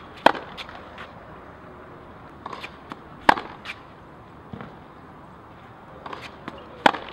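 Tennis ball struck hard with a racket on backhand returns of serve: three sharp pops about three and a half seconds apart, the last the loudest, with fainter taps just before and after each.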